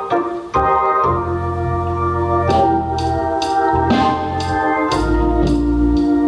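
Instrumental gospel song intro led by organ, with held chords over bass notes. A light, steady percussion beat of about two strokes a second comes in about two and a half seconds in.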